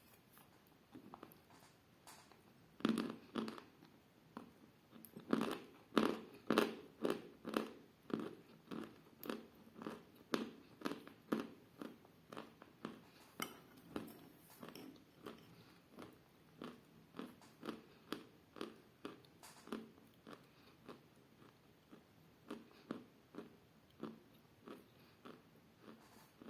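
Chalk being bitten and chewed close to the microphone: a few loud crunching bites about three and six seconds in, then steady rhythmic chewing at a little under two chews a second.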